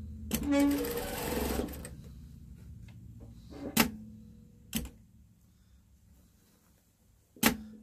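Sewing machine stitching a seam through fabric in one short run of about a second, then stopping. A few sharp clicks follow, spaced a second or more apart, while a low hum fades away.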